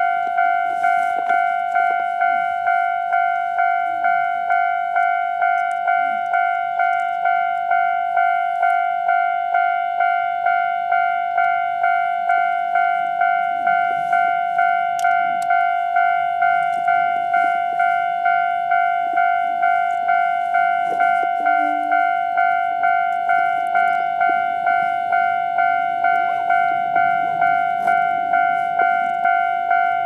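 Japanese railway level-crossing alarm: an electronic warning bell sounding its repeating two-tone 'kan-kan' about twice a second, steady throughout, signalling that the barriers are down for an approaching train.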